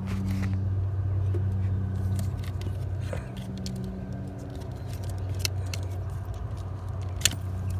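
A motor vehicle engine idling with a steady low hum, with a few light clicks and rattles of parts being handled, the sharpest near the end.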